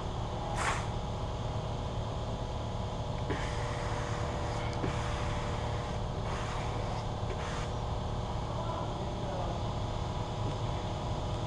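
Several brief swishes of a squeegee being pushed across vinyl wrap film, over a steady background hum.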